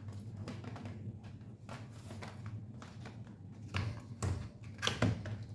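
Hands handling a Dell Vostro 2420 laptop during a RAM upgrade: a run of small plastic clicks and taps, with a few sharper knocks near the end.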